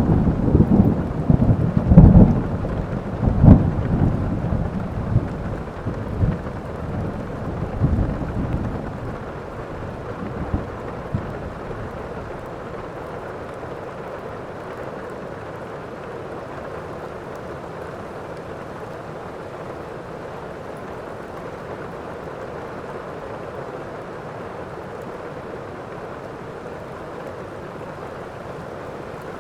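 Thunderstorm: a peal of thunder rumbling and crackling over the first ten seconds or so, then dying away, leaving steady rain.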